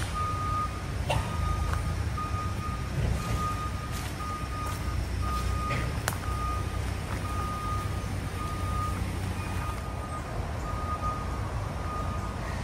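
A vehicle's reversing alarm beeping in single tones at about one beep a second, over a steady low rumble.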